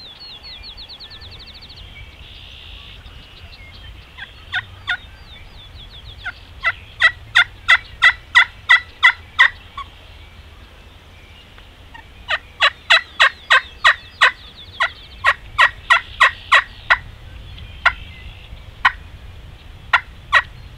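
Wild turkey calling: a run of loud yelps at about four notes a second, a pause, then a longer run of a dozen or more, with a few scattered notes near the end.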